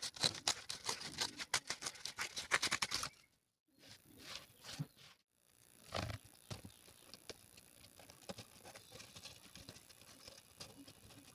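Cardboard handled by hand: rapid scratchy scraping and crackling for about three seconds, then after a short break a single knock and lighter scattered rustling.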